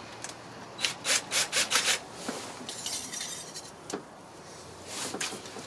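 Intake tubing and coupler parts being worked into place, rubbing and scraping against each other: a quick run of about six scraping strokes, a softer rub after it, and two more strokes near the end.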